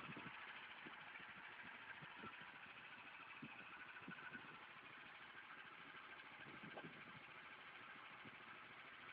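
Faint, steady hum of the homemade tractor's Chinese engine idling, with a few light knocks.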